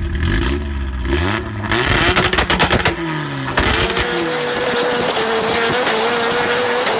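Car engine revving hard, its pitch rising and falling, choppy for a second or two, then a long wavering tyre squeal over the engine noise as the car slides sideways in a drift.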